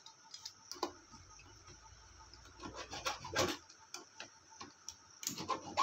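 A thin file scraping across the copper contact strips of a star-delta starter's contactor, in a few short, irregular strokes, rubbing off carbon buildup from the contacts.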